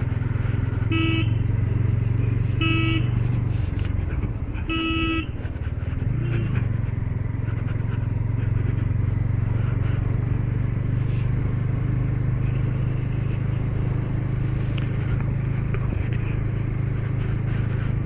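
Motorcycle engine running steadily while riding, with three short horn beeps about one, three and five seconds in. The engine note drops around four seconds in and picks up again about six seconds in.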